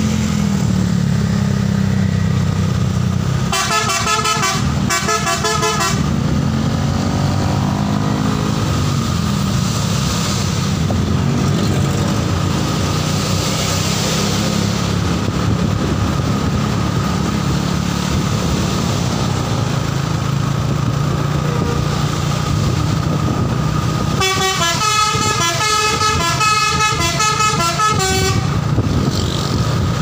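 Bus telolet horn playing rapid multi-note melodies: two short bursts about four seconds in, and a longer run of about four seconds near the end. A steady engine drone runs underneath.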